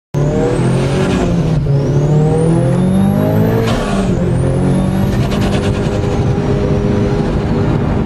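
Mitsubishi Lancer Evolution IX's tuned turbocharged four-cylinder engine, heard from inside the cabin, accelerating hard through the gears. The engine note climbs, drops sharply at two quick gear changes about one and a half and four seconds in, then levels off at high speed.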